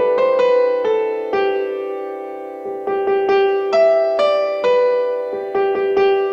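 Instrumental Christmas carol played on an electric piano, a simple melody of single notes, each ringing and fading before the next.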